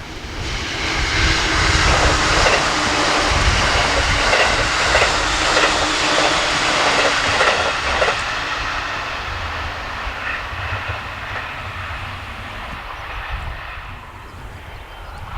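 Electric train passing the trackside: the rush of wheels on rail builds quickly to a loud peak, with a run of regular wheel clacks over rail joints in the middle and a steady hum. It then fades away as the train recedes.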